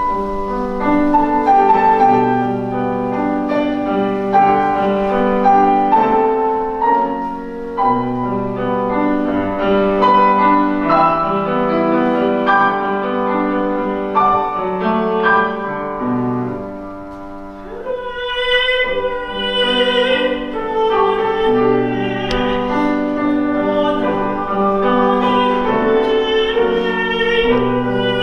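Solo piano playing the introduction to a Korean art song. About two-thirds of the way in, a soprano enters, singing with vibrato over the piano accompaniment.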